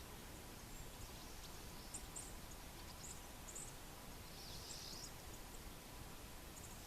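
Faint, high-pitched chips and twitters of small songbirds scattered through, with a short burst of busier chatter about four and a half seconds in, over a steady outdoor hiss.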